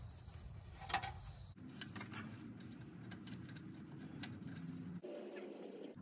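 Faint handling noise of wire ring terminals being fitted onto a generator alternator's terminal studs: small ticks, with one sharp click about a second in, over a low steady hum.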